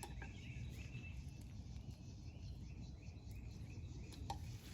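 Faint outdoor background noise with a low rumble, over which short high chirps repeat a few times a second, like a bird or insect calling; a couple of faint clicks come near the start and near the end.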